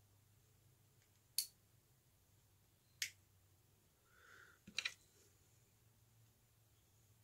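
Small sharp clicks of needle-nose pliers and a steel split ring being worked onto a fishing spoon lure: two single clicks about a second and a half apart, then two or three in quick succession.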